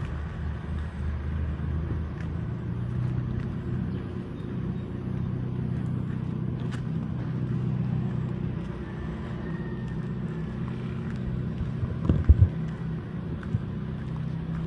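Steady low rumble of a motor vehicle's engine running, with a couple of sharp thumps about twelve seconds in.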